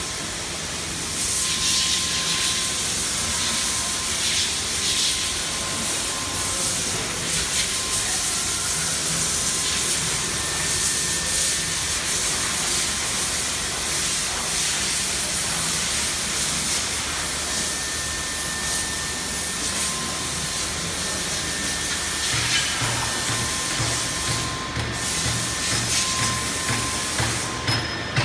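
Steady hissing machinery noise in a factory hall, with faint high whines that come and go, and a low, quick pulsing in the last few seconds.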